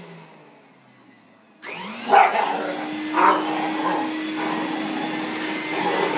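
Canister vacuum cleaner's motor winding down and going quiet, then switched back on about a second and a half in, spinning up with a rising whine to a steady hum. A dog barks at it a couple of times just after it restarts.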